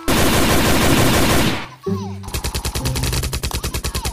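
Simulated automatic gunfire from a toy-gun video: a dense loud burst lasting about a second and a half, a short break, then a steady stream of rapid shots, about thirteen a second.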